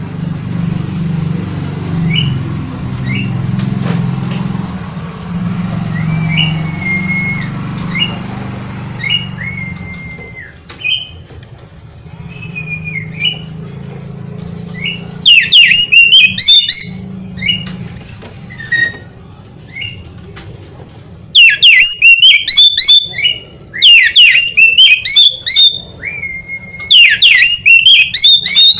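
Oriental magpie-robin singing: short whistled notes at first over a low rumble, then from about halfway loud, rapid, warbling song phrases in several bouts.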